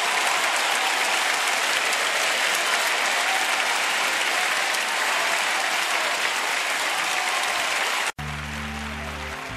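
Audience applauding steadily. About eight seconds in, the applause cuts off abruptly and a song's intro begins with low, held notes.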